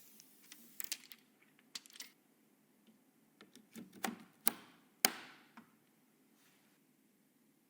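Irregular clicks and taps of computer parts being handled and fitted together during a PC build, with two louder knocks a little past the middle.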